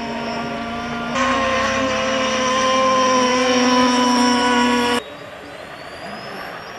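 RC powerboat's engine running at high revs as the boat speeds across the water, a steady, high-pitched buzz that gets louder about a second in. It cuts off suddenly about five seconds in, leaving a quieter background with a faint whine rising in pitch.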